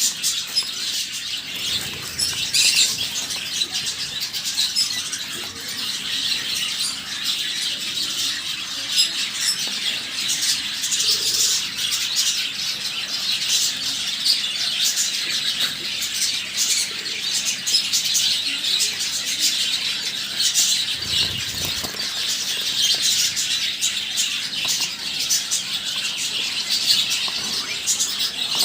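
A group of finches calling continuously, with many short, high-pitched chirps overlapping.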